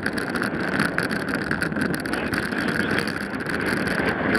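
Road bicycle riding along an asphalt highway: steady rushing of wind over the handlebar-mounted microphone, with fluttering buffets, mixed with tyre and road noise.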